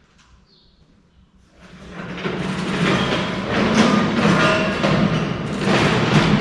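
Background music with drums and percussion fades in about a second and a half in, after a quiet start, and plays on steadily.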